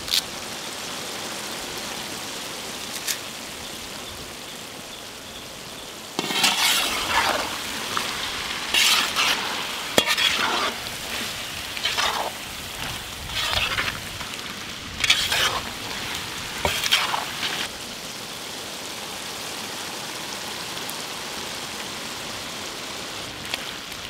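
Trevally pieces with crushed black pepper and curry leaves sizzling steadily in hot oil in a pan. Through the middle stretch a spoon or ladle stirs through the pan in about seven scraping strokes, then the even sizzling goes on alone.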